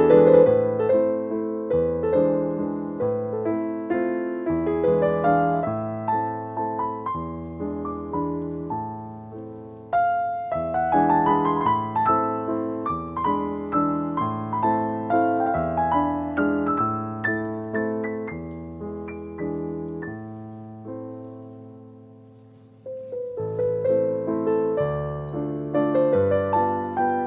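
Background piano music: a gentle melody of struck notes over single low bass notes. It fades into a short lull and starts up again a few seconds before the end.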